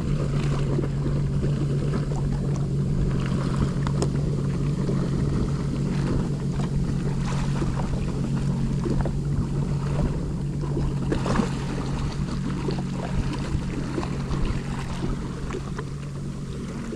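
Jet ski engine running steadily at low revs, a constant low hum, with water splashing and some wind on the microphone.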